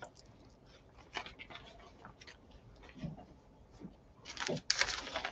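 Plastic freezer bags rustling and crinkling as they are handled, with a few soft taps and clicks; the rustling gets louder about four seconds in.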